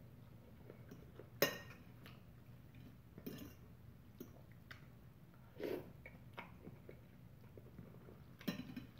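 Korean ramen noodles being eaten: quiet chewing and slurping, with a few short, sharp sounds spread through, the longest a little before six seconds in.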